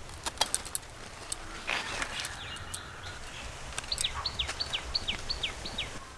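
A bird calling a rapid series of about eight short, downward-slurred whistled notes in the second half. About half a second in there is a quick run of sharp clicks from bottle gourd vine stems being cut with a small knife.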